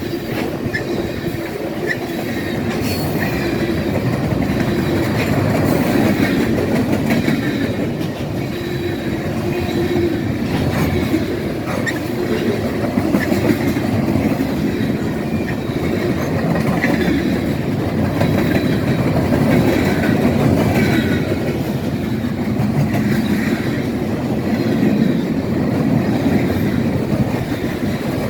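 Railroad cars rolling past in a loud, steady rumble, wheels clacking over the rail joints, with a faint high wheel squeal now and then.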